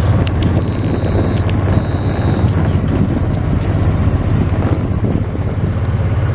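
Engine of a small off-road vehicle running steadily while riding along, with wind on the microphone. Two short high-pitched beeps sound in the first few seconds.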